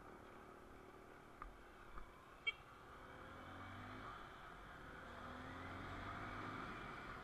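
Motorcycle engine running, heard muffled from a bike-mounted camera under wind and road noise, its pitch rising as it accelerates in the second half. There are a couple of light clicks and one short beep about two and a half seconds in.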